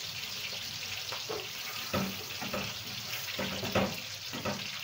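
Wooden spoon stirring and scraping a spiced chicken and vegetable mixture frying in a metal kadhai, over a steady sizzle. The spoon scrapes and knocks against the pan irregularly, roughly once a second, loudest about two seconds in and again near four seconds.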